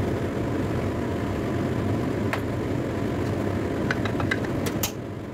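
A steady low mechanical hum, with a few light clicks between about four and five seconds in.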